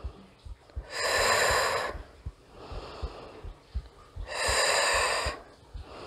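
A woman's loud, breathy exhalations, two of them about three and a half seconds apart and each about a second long, with a softer inhale between. This is paced exercise breathing, breathing out on each leg lift and in on the way down.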